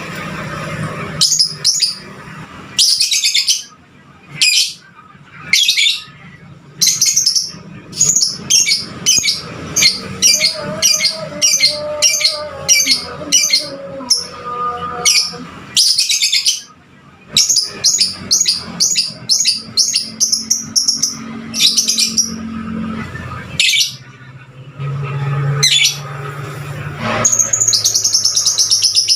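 Lovebird chirping in shrill, rapid strings of short high notes broken by brief pauses, a 'fighter' lovebird's song of the kind played to provoke other lovebirds into singing.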